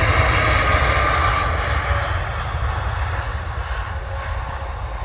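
Boeing 787 Dreamliner's twin turbofan engines at takeoff power during the takeoff roll, passing by: a loud jet rumble with a whine that falls in pitch as the aircraft goes past, the sound fading as it moves away down the runway.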